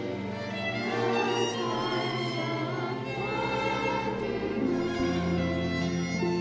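Children's choir singing a Christmas song over an orchestral-sounding accompaniment with strings.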